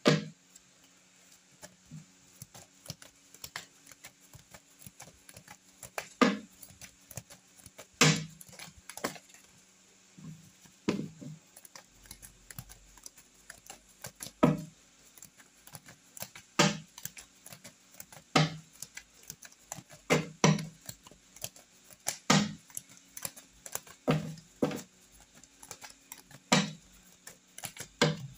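Tarot cards being shuffled by hand: an irregular run of light card clicks, with a sharper, louder click every second or two.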